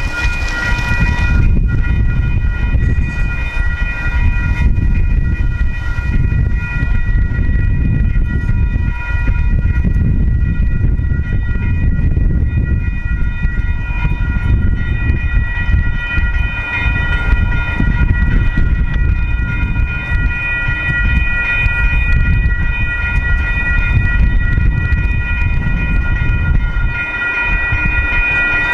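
Railroad grade-crossing warning bell ringing continuously, its steady high ringing tones over the low rumble of a slow freight train at the crossing.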